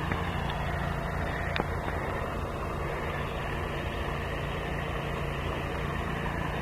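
A steady mechanical hum with a few fixed low tones, unchanging throughout, and two faint clicks, one near the start and one about a second and a half in.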